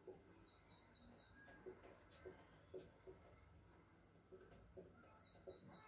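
Near silence: the faint scratch and tap of a marker writing on a whiteboard, with two brief runs of faint high chirps, one near the start and one near the end.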